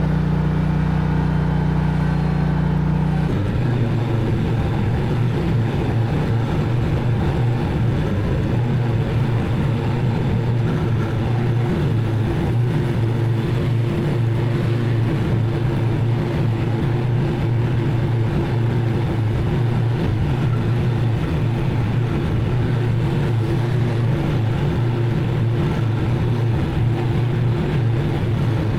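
Zero-turn mower engine running steadily under load while mowing. About three seconds in, the engine note changes abruptly to a different steady pitch.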